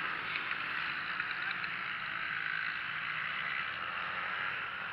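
Steady hiss of rain, even and unbroken.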